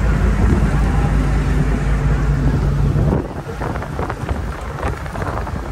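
Boat engine running with a steady low hum, mixed with wind noise on the microphone. About three seconds in the hum drops away, leaving a crackling, rushing noise of wind buffeting the microphone.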